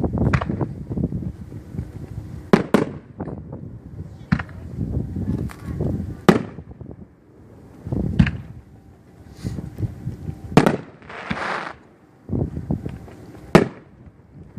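Fireworks going off: aerial shells bursting with sharp bangs every second or two, about eight in all, with low rumbling between them. A hissing crackle lasting about a second comes about two-thirds of the way through.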